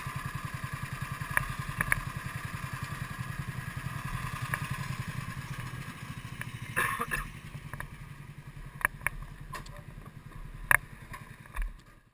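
Kart engine idling with an even pulsing beat that slowly fades, with several sharp knocks and clatters over it.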